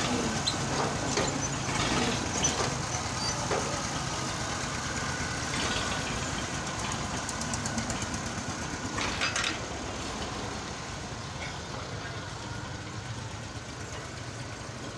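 An engine idling steadily, with scattered knocks and clatter in the first few seconds.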